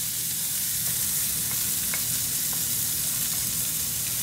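Chopped onion sizzling steadily in hot olive oil in a black skillet, stirred with a wooden spatula, with a few light clicks.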